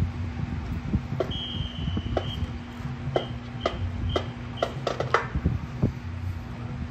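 A high electronic tone held for about a second, then a run of short high beeps about twice a second, over a steady low hum with scattered clicks.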